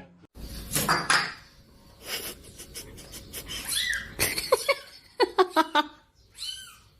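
A cat meowing in a series of short calls that rise and fall in pitch, several coming in quick succession in the middle.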